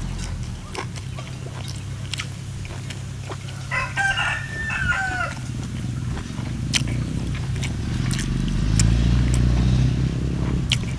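A rooster crows once, about four seconds in, over the steady low rumble of a farm machine's engine working in the fields, likely a rice harvester or tractor, which grows louder near the end. Scattered small clicks come from grilled fish being torn apart by hand.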